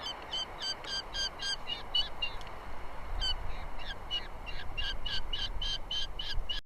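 Osprey giving a rapid series of short, sharp chirping calls, about four a second, with a brief pause a little before the middle.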